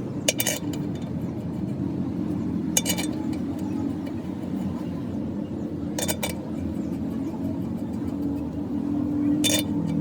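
Four sharp metallic clinks that ring briefly, spaced a few seconds apart, over a steady low machine hum.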